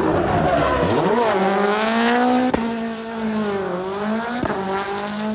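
Rally car engine held at high revs while drifting, its pitch dipping and climbing back twice as the throttle is worked, with tyres squealing on the tarmac. Two sharp cracks stand out partway through.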